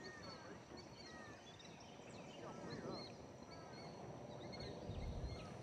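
Several wild birds calling and singing: short chirps and up-and-down whistles, overlapping throughout. A low rumble rises about five seconds in.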